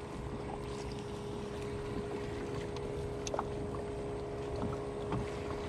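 Electric trolling motor on a small aluminium boat humming steadily, one constant tone over a low rumble, with a few faint clicks.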